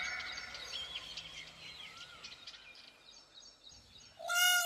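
Peacock calling: a loud call fades out at the start, faint chirps of small birds fill the quiet middle, and a new loud call, rising and falling in pitch, begins about four seconds in.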